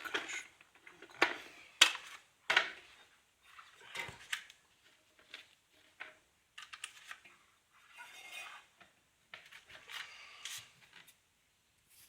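Hard clanks, knocks and short rattling scrapes at irregular intervals as parts of a Ural-1M vacuum cleaner are handled; the motor is not running.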